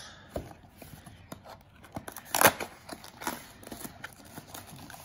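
Cardboard coffee-capsule box being handled and opened by hand: scattered clicks and scrapes of card, with one louder short rip about two and a half seconds in.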